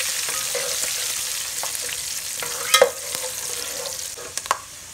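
Whole spices and coconut pieces sizzling in hot oil in a steel pot as a tempering is fried. The sizzle slowly fades, and a spatula stirring scrapes and knocks against the pot, loudest about three seconds in and again near the end.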